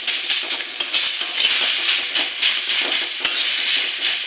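Chopped leafy greens and mustard-chilli paste frying in a stainless-steel wok, sizzling while a steel spatula stirs and scrapes them against the pan in frequent short strokes.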